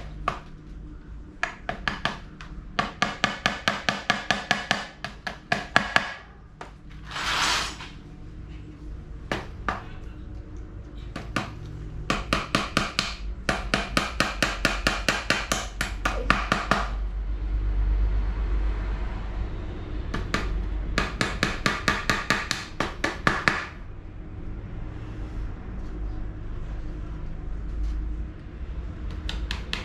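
Quick runs of light hammer taps, about six or seven a second, in three bursts of a few seconds each, with a brief rasping noise between the first two bursts.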